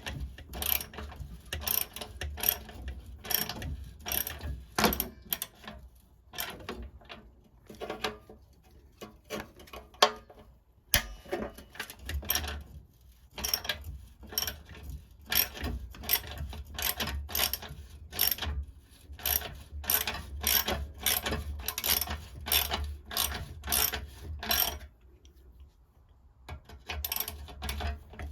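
Hand ratchet wrench clicking in quick repeated strokes as a rusted bumper-iron nut is undone, with a brief pause near the end.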